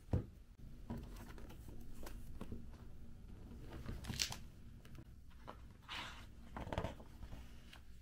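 Hardcover notebook set down on a desk with a knock, then opened and handled, its cover and paper pages rustling as they are turned.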